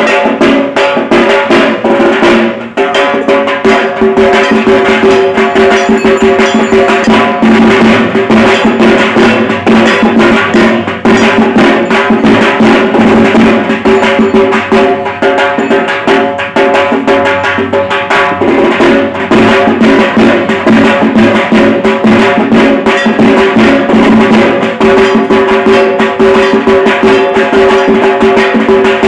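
Dhak, the large Bengali barrel drum played with sticks, beaten loud in a fast, continuous rhythm for Durga Puja, with a steady ringing hum under the strokes.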